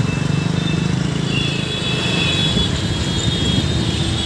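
Road traffic with a nearby vehicle engine running close by, a steady low rumble with a rapid pulse.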